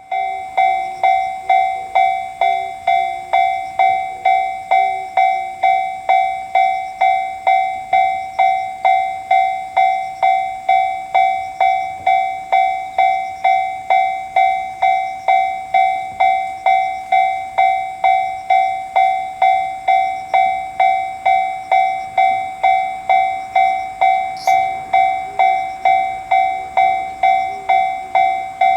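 Japanese railway level-crossing warning alarm ringing its steady, evenly spaced "kan-kan" clang, repeating without change.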